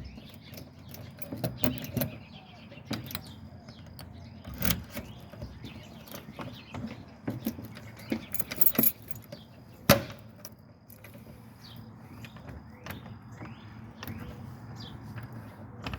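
Scattered metal clicks and rattles of a newly fitted door handle and deadbolt being worked, with a few sharper knocks, the loudest about ten seconds in.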